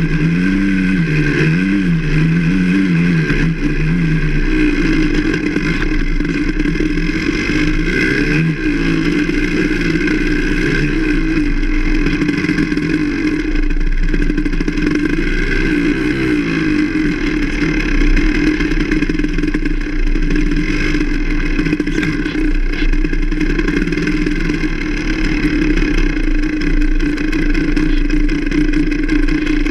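Enduro motorcycle engine under constant throttle changes on a dirt trail, the revs rising and falling about once a second for the first few seconds, then holding steadier with slower swells.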